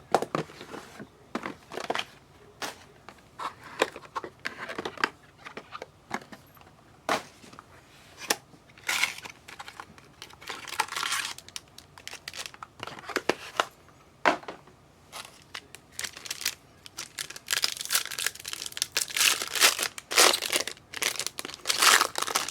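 Plastic and foil trading-card packaging crinkling and tearing as packs are opened by hand, with scattered clicks and rustles of cards being handled. The crinkling gets busier and louder over the last few seconds.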